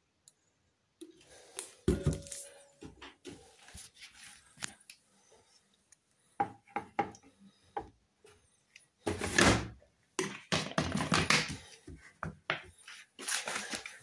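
Intermittent clicks, knocks and clatter of hard plastic being handled: a detergent bottle and its dosing cap, then the detergent drawer of a Hoover H-Wash washing machine. The clatter is loudest and densest about nine to twelve seconds in.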